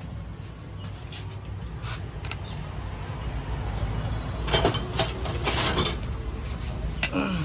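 Steady low rumble, with a short run of metal clicks and rattles starting about four and a half seconds in as a steering rack is handled on a concrete floor.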